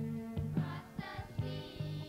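Song accompaniment with a steady beat and a repeating bass line, a melody line rising over it about half a second in.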